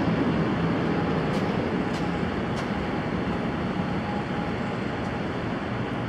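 Steady low rumble and hiss of parking-garage background noise, with a few faint ticks between one and three seconds in.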